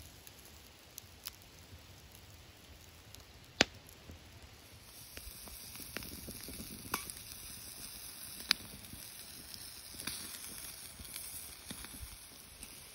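Cheddarwurst sausages sizzling on a grill grate over hot coals, with scattered sharp pops and crackles; the loudest is a single pop about three and a half seconds in. The sizzle grows louder about five seconds in.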